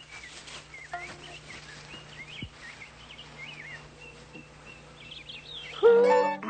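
Birds chirping throughout: many short rising and falling calls. Near the end a man's voice starts a held, sung note.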